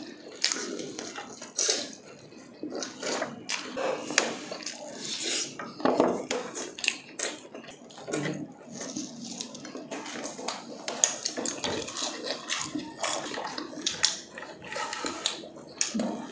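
Close-up eating sounds: crispy fried chicken crunching and crackling as it is bitten and torn, with chewing and lip smacks. Irregular clicks of food and plastic sauce cups being handled come in between.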